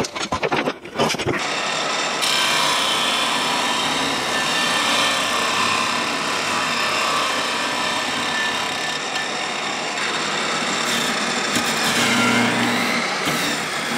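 A few scraping clicks, then the job site table saw's motor running steadily with a sanding disc spinning on its arbor. About twelve seconds in, a block is pressed against the spinning disc and the pitch dips briefly under the load.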